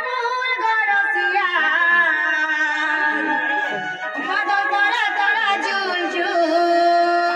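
Odia danda nacha folk music: a voice singing with instrumental accompaniment, its melody bending up and down over a steady held note.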